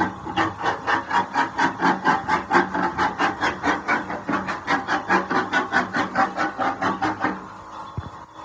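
A hand tool worked back and forth on wood in quick, even strokes, about four or five a second, stopping near the end.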